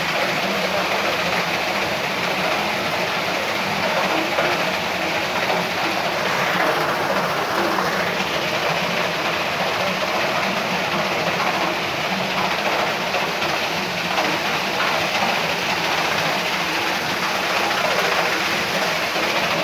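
Waterfall: a constant, even rush of falling water that does not change throughout.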